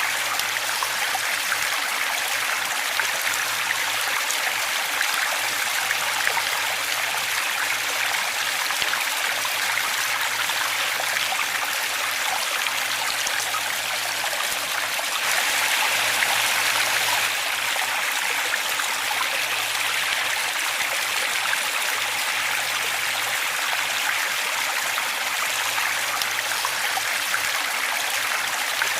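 Waterfall: a steady rush of falling and running water, swelling slightly for a couple of seconds about halfway through.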